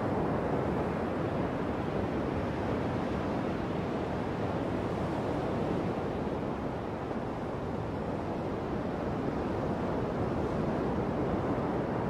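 Ocean surf rushing steadily with wind, an even, unbroken wash with no separate wave breaks standing out.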